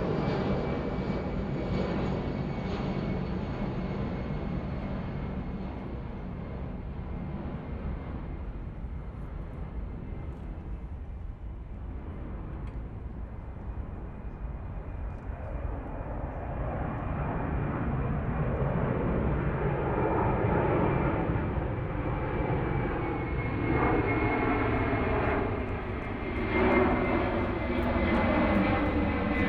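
Single-engine propeller airplane running steadily. The engine sound fades somewhat towards the middle, then grows louder again with its pitch shifting, as the aircraft comes nearer.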